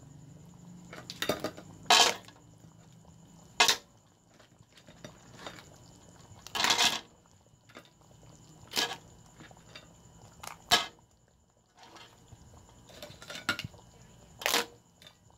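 Utensils and pieces of crab clanking and knocking against a cooking pot as the crab is put into the thickened sauce: about eight separate clanks at irregular intervals, one near the middle longer and scraping.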